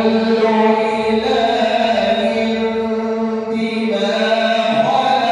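A male reciter chanting Qur'an recitation in a melodic tajwid style, drawing out long held notes that glide between pitches without a break.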